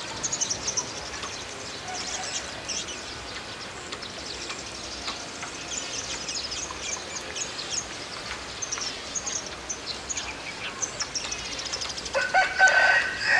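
Small birds twittering in short, high chirps throughout. Near the end a chicken gives one loud call about a second long.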